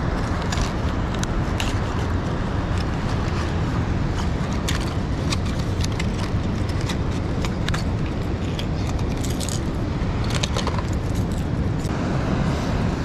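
Crinkling plastic packaging and sharp clicks as a hard plastic jerkbait with treble hooks is unpacked and handled, over a steady rush of wind on the microphone and fast-flowing water.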